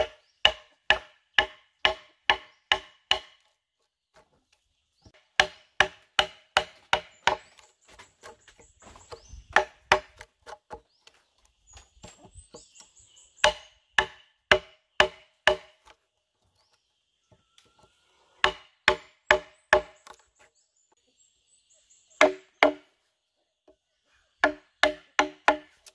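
Wooden mallet striking a steel chisel to cut a mortise in a timber beam: sharp, briefly ringing knocks about two a second, in runs of several strikes with pauses between. Quieter small knocks come between some runs.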